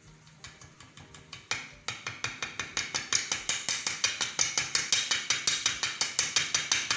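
A sieve being tapped and shaken to sift sugar with the other dry ingredients: a fast, even run of light taps, about six a second, that gets louder about two seconds in.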